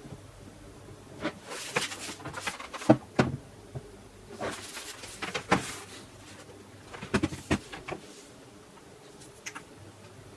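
Clusters of short knocks and clicks from an HP ZBook 17 G4 laptop being handled, set down on a desk and having its lid lifted open.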